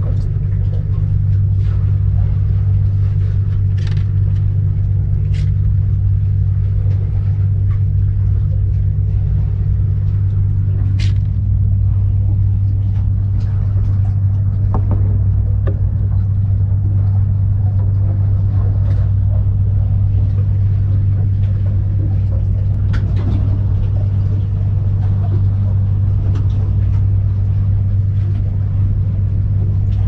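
A loud, steady low hum with a few faint clicks scattered through it.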